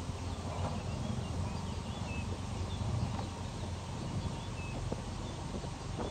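A large flock of waterbirds calling: many short, faint high chirps scattered throughout, over a steady low rumble.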